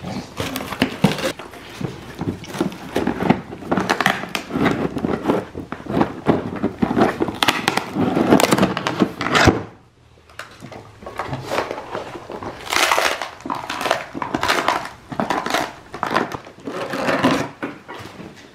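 Dogs ripping and nosing through a cardboard box: an irregular run of tearing, crackling and crunching cardboard, with a brief lull about ten seconds in.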